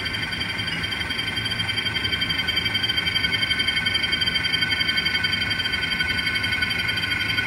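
Model RS1 diesel locomotive creeping along at low speed: a steady engine drone with a fast, even throb and several constant whining tones.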